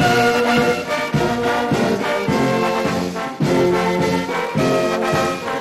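Brass music: a run of held notes changing in a steady rhythm.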